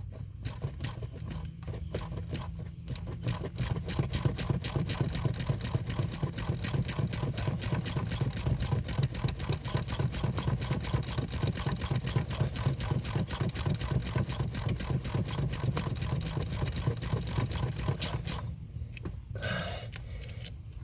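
Ratchet wrench clicking rapidly and evenly as a nut is run down, stopping near the end.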